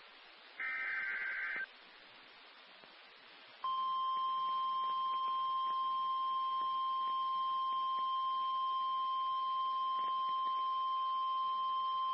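Emergency Alert System tones. The last of the three SAME header bursts, a harsh digital data squawk about a second long, is followed after a pause of about two seconds by a single steady alert tone that starts about four seconds in and holds. It is the attention signal announcing the tornado warning.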